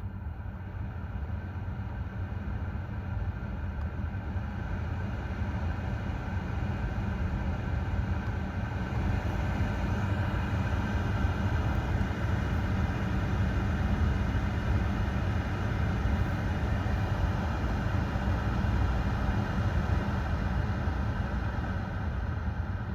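Car heater blower fan running steadily with a low hum and an airy rush, its motor shaft freshly cleaned and greased so that the earlier abnormal noise is gone and it runs quietly. It grows louder over the first ten seconds or so, then holds steady.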